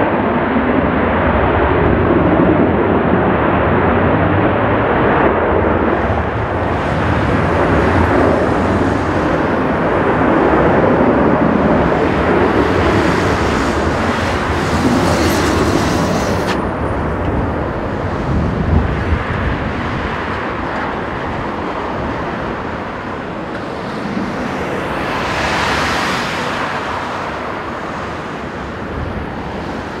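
Boeing 777 freighter's GE90 jet engines running at low power as it moves slowly along the ground, mixed with strong gusty wind rumbling on the microphone. The sound brightens into a hiss briefly, twice.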